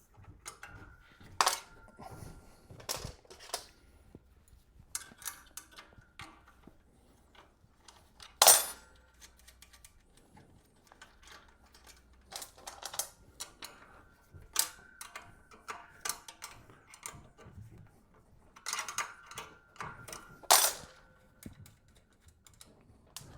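Nuts and bolts being worked loose on a bed frame's bar: scattered small metal clinks and scrapes, with three louder clanks, the loudest about eight seconds in.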